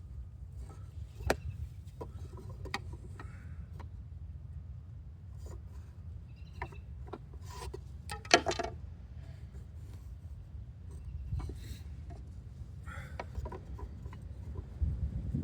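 Scattered knocks, taps and rubbing of wood being handled and worked by hand, over a steady low rumble. The sharpest knock comes about eight seconds in.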